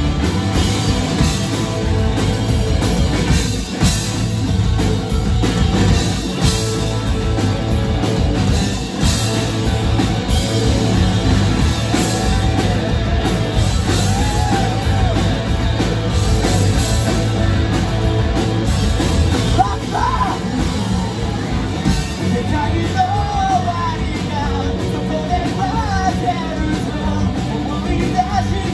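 Live rock band playing: electric guitars, bass and drums, with a lead vocal that comes in about halfway through.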